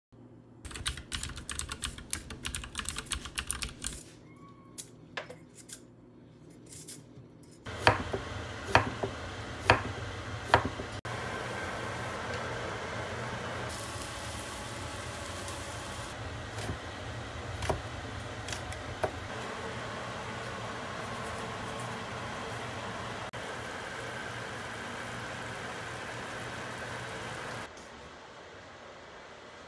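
Kitchen prep sounds: rapid scraping strokes of a hand vegetable peeler on a vegetable, then a steady hiss with several sharp knocks of a utensil against cookware about eight to eleven seconds in.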